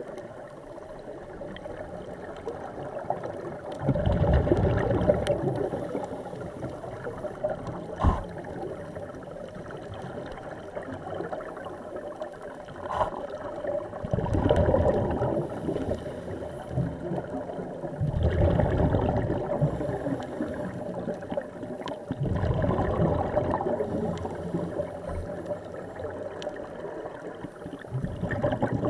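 Scuba divers' regulator exhalations heard underwater: a rumbling bubbling surge every few seconds, each lasting two or three seconds, over a steady muffled underwater hiss. A single sharp knock about a quarter of the way in.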